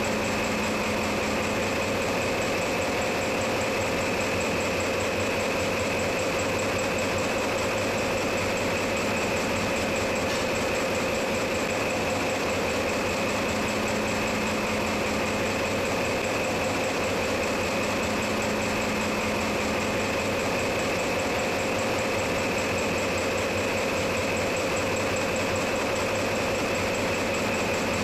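Steady machinery noise of a ship's engine room: a constant dense hum with several steady whining tones held at different pitches, unchanging throughout.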